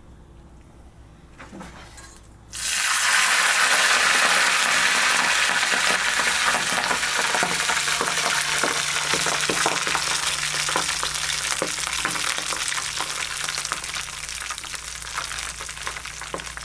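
Food sizzling and crackling in hot fat in a pan, starting suddenly about two and a half seconds in as it hits the hot oil, then slowly dying down.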